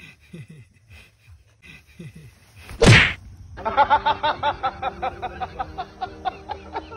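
One loud, sharp slap about three seconds in, with no lead-up. About half a second later music starts, playing quick repeated notes.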